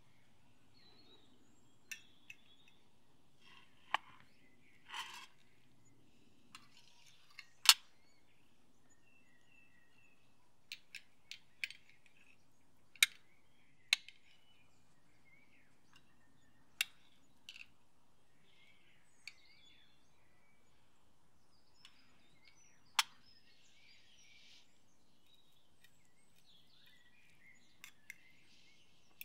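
Fork and knife clinking and scraping against a plate while food is cut and eaten: a dozen or so sharp, separate clicks, the loudest about eight and thirteen seconds in. Faint bird chirps in the background.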